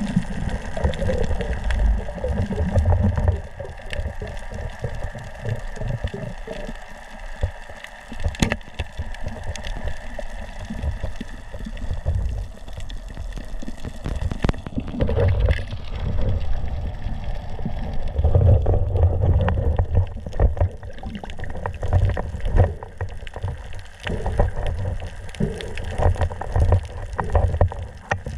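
Muffled underwater water noise heard through a submerged camera housing: uneven low rumbling and gurgling of water moving around the camera, swelling and easing irregularly.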